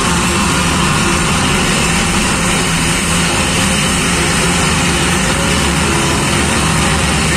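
Heavy armoured vehicle's engine rumble on a film soundtrack, steady and loud, played through cinema speakers and picked up by a phone in the audience.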